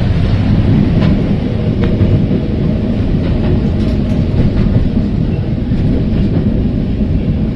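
Heritage electric tram running along the line, heard from on board: a steady low rumble of wheels on rails, with a few faint clicks.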